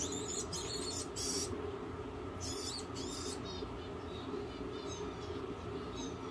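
Five short bursts of high hissing within the first three seconds, then a few faint, short high squeaks that fall in pitch, from a feeder rat in a rattlesnake enclosure, over a steady low room hum.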